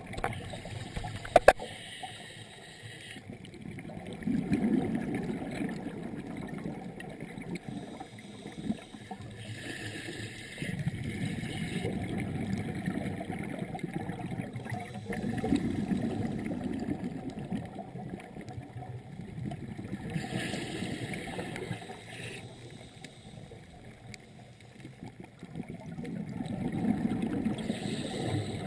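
Scuba diver breathing through a regulator underwater. A short hiss on each inhale alternates with a longer low rumble of exhaled bubbles, over a few breaths.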